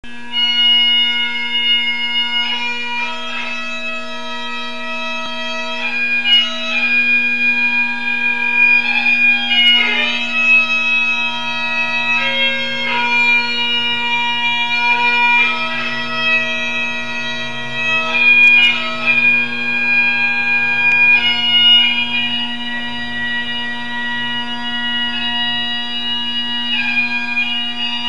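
Bagpipe music: a slow melody played over a steady, unbroken drone.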